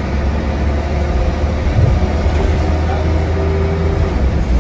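Diesel engine and drivetrain of preserved single-deck bus Black Prince 73 (M73 WYG), heard from inside the saloon while the bus is under way: a steady low rumble, with a faint higher whine about halfway through.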